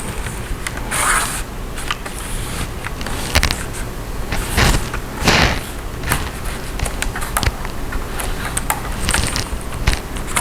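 Plastic cover of a Dell Latitude E5450 laptop being pressed down and handled so that its clips snap into place: a series of irregular clicks and scrapes over a steady low hum.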